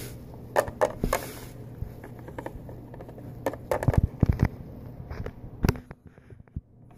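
Scattered taps and knocks of small plastic toy animal figures being moved by hand across a plastic playset, in clusters with gaps between, over a faint low steady hum.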